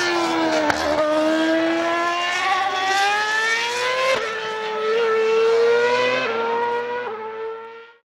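Lotus Formula One car's 2.4-litre Renault V8 engine running at high revs. Its pitch dips, then climbs steadily as it accelerates, with several quick drops in pitch at upshifts. The sound fades out just before the end.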